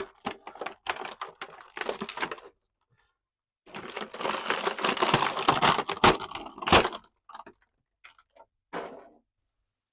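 Stiff plastic packaging crackling and crinkling as an action figure is worked out of its box. It comes in two stretches, the second louder with a few sharp snaps, then a few short clicks.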